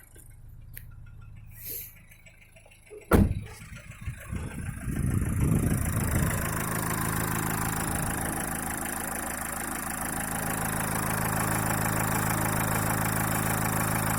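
A sharp thump about three seconds in. Then the Renault K9K 1.5 dCi four-cylinder diesel starts about four seconds in and settles into a steady idle, knocking from a faulty fuel injector.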